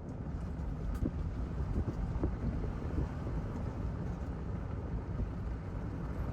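Vehicle driving on a dirt road: a steady low rumble with wind on the microphone and scattered small ticks.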